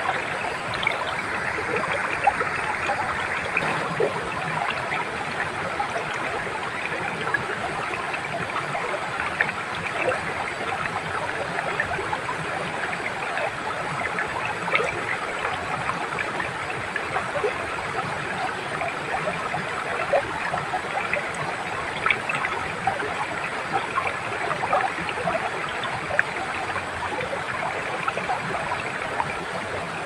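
A small waterfall and a shallow rocky stream: water pours into a pool and runs over stones in a steady rush, with many small splashes and gurgles scattered through it.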